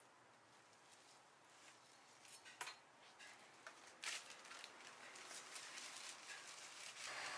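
Faint clicks and clinks of kitchen utensils, with two sharper clicks about two and a half and four seconds in, and a steady hiss coming up near the end.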